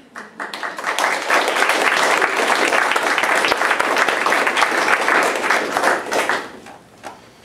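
Small audience applauding, a dense patter of hand claps that builds within the first second, holds for about five seconds and dies away about six seconds in.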